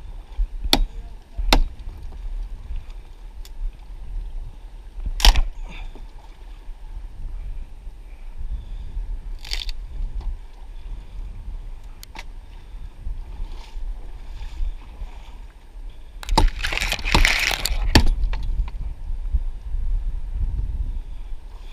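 Close handling noise of a camera being moved through the branches of a fallen ponderosa pine: a low rumble throughout, a few sharp clicks and snaps, and a dense rustle of pine needles and twigs for about two seconds near the end.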